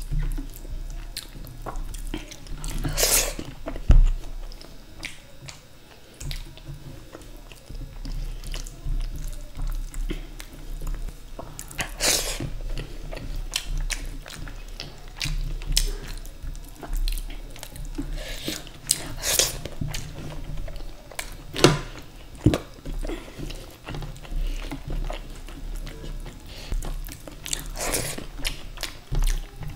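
Close-miked eating: chewing mouthfuls of rice and dal makhani, with wet, squelching sounds of fingers mixing the rice and dal on the plate. A few sharper smacks stand out about three, twelve, nineteen and twenty-eight seconds in.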